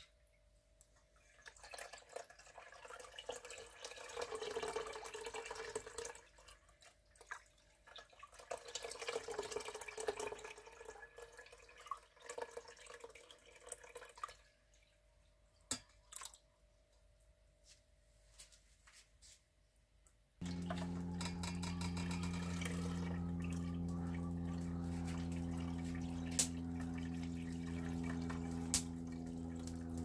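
Grape must for pekmez ladled from a stainless steel pot and poured through a cloth-lined strainer, splashing and dripping in several pours. About two-thirds of the way through, a steady drone of several held tones cuts in suddenly and stays, louder than the pouring, with two sharp clicks over it.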